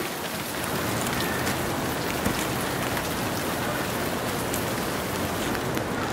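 Steady rain falling on wet pavement and grass, a continuous hiss with a few faint drop ticks.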